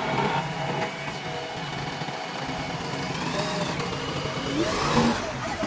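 JCB 3DX backhoe loader's diesel engine running steadily, with brief rising and falling whines in the second half.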